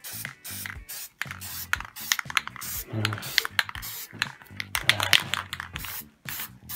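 Aerosol spray paint can hissing in many quick short bursts as a metallic ground coat is dusted on with light taps of the nozzle.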